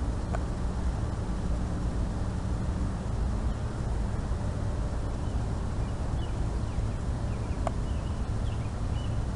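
Steady low rumbling noise, with a single sharp click about three quarters of the way through and a few faint high chirps near the end.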